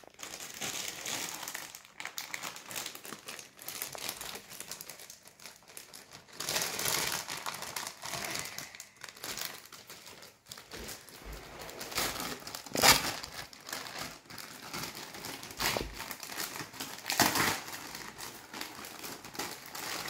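Clear plastic packaging bag crinkling and rustling as it is handled and opened, with several louder crackles along the way.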